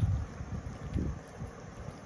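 Wind buffeting the microphone, with low rumbles near the start and about a second in.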